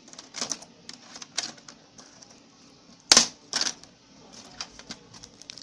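Scattered plastic clicks and snaps as a pointed pry tool works a Lenovo G580 laptop keyboard loose from its retaining clips, with one sharp snap about three seconds in the loudest.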